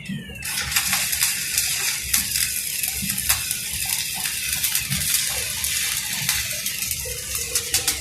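Electric arc welding: the arc crackles and hisses with many sharp pops. It starts abruptly about half a second in and dies away near the end.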